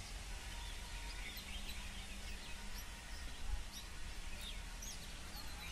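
Open-air field ambience: a low steady rumble with scattered short, high bird chirps.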